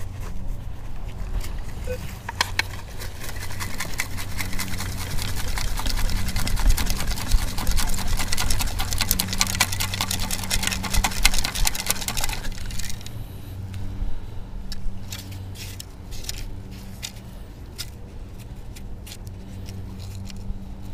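Sand and pebbles rattling and crackling as a metal-detecting scoop is shaken to sift out a target, for about ten seconds before stopping abruptly, followed by a few scattered clicks, over a steady low hum.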